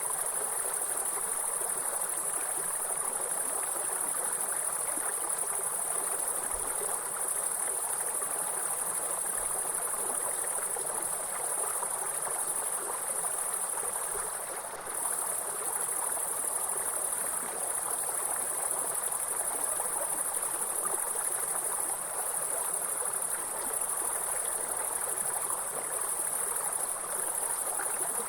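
Steady, high-pitched insect trilling over the even rush of a flowing stream. The insect sound drops out for a moment about halfway through.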